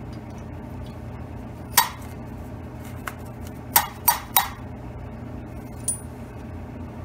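Sharp metal-on-metal clinks of an intake valve being dropped and tapped against its freshly ground seat in the Allis-Chalmers WD45 cylinder head to check the seat contact. One clink, then a quick run of three about two seconds later, then a lighter one, over a steady low hum.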